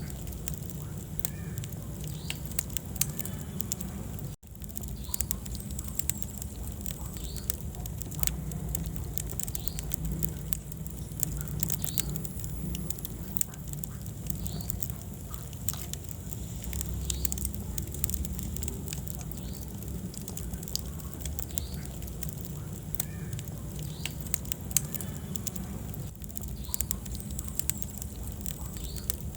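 Wood fire burning in a fireplace, crackling with frequent sharp pops over a steady low rumble. The sound drops out for an instant about four seconds in.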